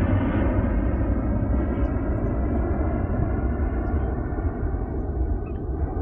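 A steady engine drone over a low rumble, slowly fading.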